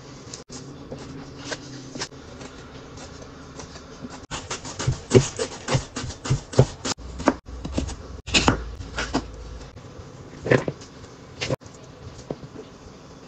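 Kitchen knife slicing soaked shiitake mushrooms on a cutting board, then a peeled white radish being shredded on a hand grater in a quick run of scraping strokes, with a couple of louder knocks near the end.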